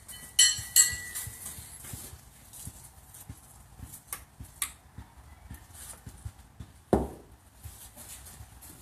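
Steel pitching horseshoes clanking with a short metallic ring, twice about half a second apart, then a few faint clicks and a dull thump about seven seconds in.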